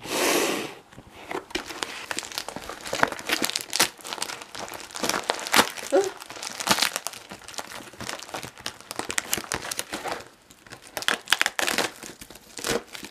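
Plastic packaging crinkling and rustling as a metallic bubble mailer is opened and the bubble wrap inside is pulled out and handled, in many short crackles with a loud rustle right at the start.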